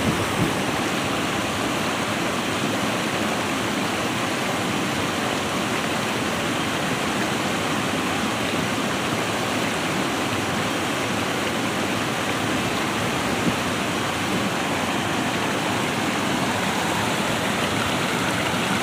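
Creek water rushing steadily over rocky rapids and a small cascade.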